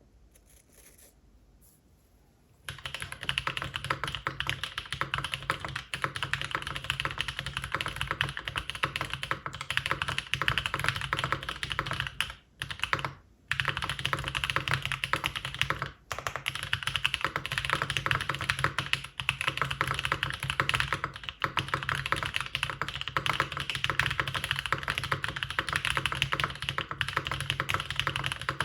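Fast, continuous typing on a Mode Eighty custom mechanical keyboard with lubed Holy Boba tactile switches (Gazzew Boba housings, Halo Clear stems) in a carbon fibre plate, with GMK keycaps. The keystrokes start about three seconds in and run densely, with a couple of brief pauses near the middle.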